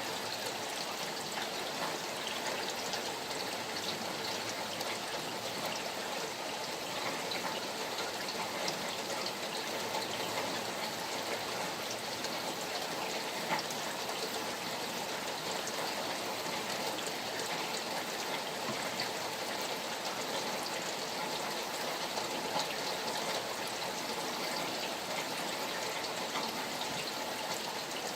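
Steady rain falling, with the patter of many small drops over running water.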